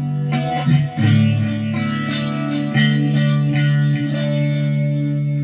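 Guitar played through an echo effect in D major: picked notes and chords ring on, with fresh strikes about a third of a second in, at one second and near three seconds.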